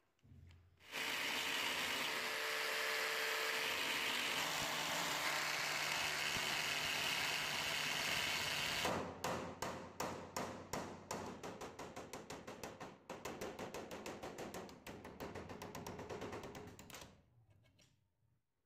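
Electric drill boring into the rusted hinge pin of an antique warming pan. The drill runs steadily at first, then about halfway through breaks into rapid pulses, about four a second, and stops near the end.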